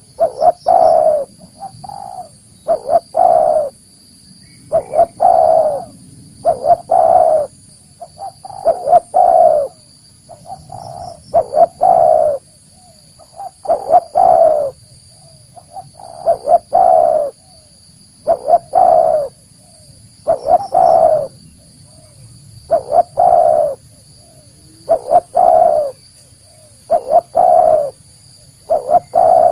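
Spotted dove (tekukur) cooing over and over: each phrase is a few short notes followed by a longer coo, repeated about every two seconds.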